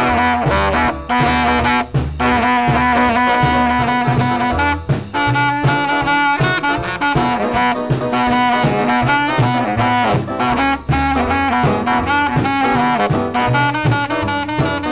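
Background music: an upbeat, saxophone-led instrumental passage with brass over a steady bass beat.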